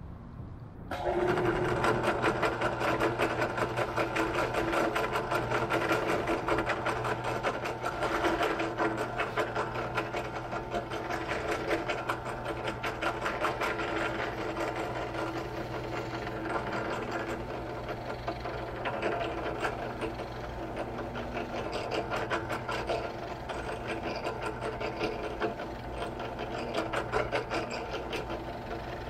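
Benchtop drill press starts up about a second in and runs steadily, a quarter-inch bit drilling through a small wooden block.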